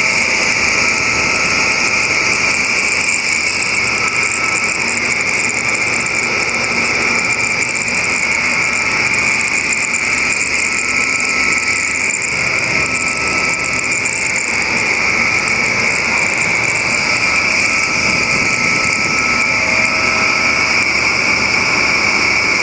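Circulation fan running with an abnormal noise: a steady, loud, hissing rush with a faint whistle that comes and goes every second or two.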